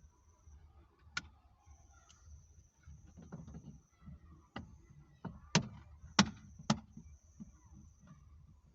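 A series of sharp clicks and knocks: one about a second in, then several in the second half, the loudest two close together. A faint steady high-pitched whine runs under them.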